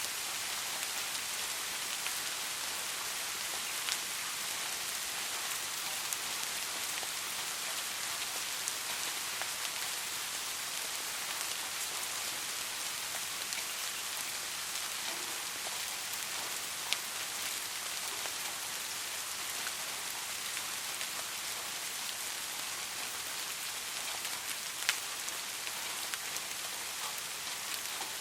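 Steady rain falling, an even hiss with scattered individual drop ticks; a few drops land a little louder, about 4, 17 and 25 seconds in.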